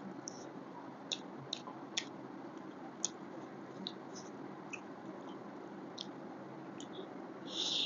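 Close-miked eating sounds: scattered sharp wet clicks and smacks of chewing, with a louder squelchy burst near the end, over a steady low hum.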